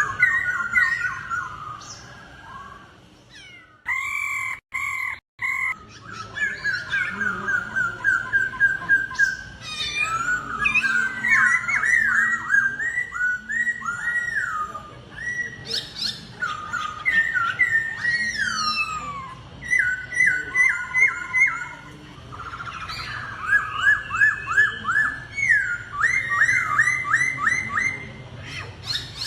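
Laughingthrushes singing in a contest, loud whistled phrases of rapid repeated notes and quick downward slurs answering one another. The sound cuts out abruptly a couple of times about four to five seconds in.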